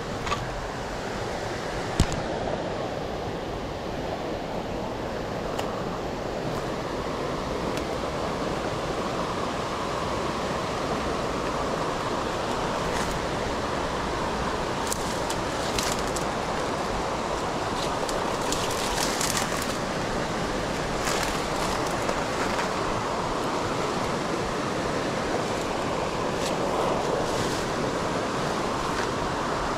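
A small, shallow river rushing over rocks in a riffle: a steady rushing of water that grows a little louder after about ten seconds. A sharp click about two seconds in and a few short ticks and rustles later.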